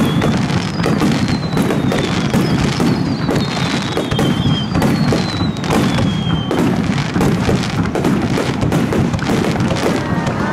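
Aerial fireworks barrage: a rapid, continuous string of shell bursts and crackling, with several thin whistles falling slowly in pitch in the first part.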